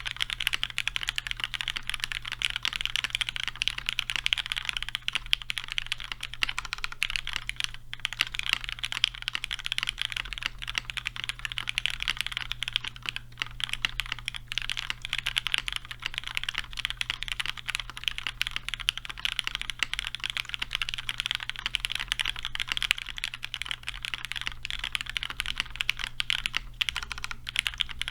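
Continuous fast typing on a custom mechanical keyboard with lubed, broken-in Cherry MX Black linear switches in an aluminium top-mount plate, topped with GMK keycaps: a dense stream of key clacks with no gaps. A faint steady low hum runs beneath.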